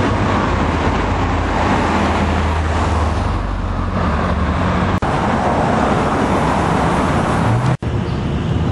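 Steady road-vehicle noise: engine hum under tyre and traffic noise, cut off for an instant twice, about five seconds in and near the end.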